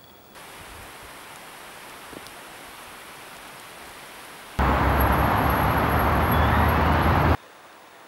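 Steady outdoor noise that changes abruptly with each cut: a soft even hiss, then about four and a half seconds in a much louder, deep rushing noise for about three seconds that stops suddenly.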